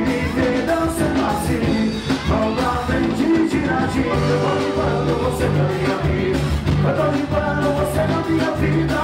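A live band playing with a lead singer: vocals over electric bass, drums, keyboard, accordion and guitar.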